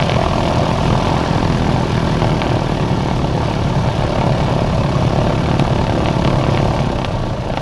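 Beech 18's twin radial engines idling on the ground, heard from inside the cockpit as a loud, steady rumbling drone.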